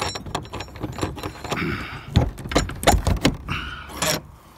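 Metal trailer door and latch being handled and shut: a quick series of clanks, rattles and knocks, with a couple of short scrapes of metal on metal.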